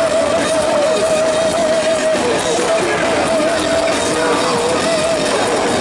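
Heavy metal band playing live and loud, heard through the venue's PA: a dense wall of distorted guitar and drums under a long held note with wide vibrato, which breaks off about two seconds in and gives way to more held, wavering notes.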